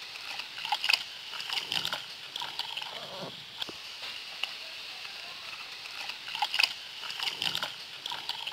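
Soapy water sloshing and splashing in a plastic bucket as a puppy is scrubbed by hand, in irregular bursts over a steady high hiss.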